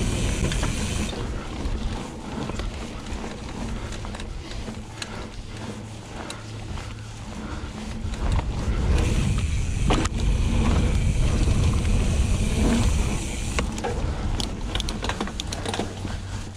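Steel hardtail mountain bike ridden down a dirt trail: wind buffeting the helmet camera's microphone, tyres rumbling over the ground and the bike rattling over bumps. A high freewheel buzz from the Hope Pro 4 rear hub cuts off about a second in. The rumble grows louder for a stretch from about eight seconds in.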